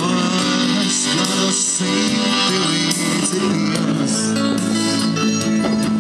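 Live band music played through loudspeakers, with guitar to the fore, steady and continuous.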